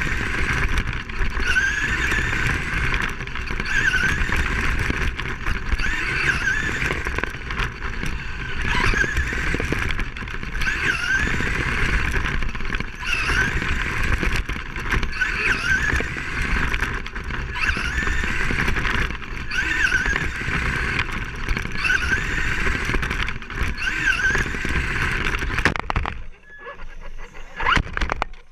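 Radio-controlled racing car filmed from on board: its motor whine rises in pitch again and again as it accelerates out of each turn, over a steady rushing noise of driving. About two seconds before the end the sound drops away abruptly.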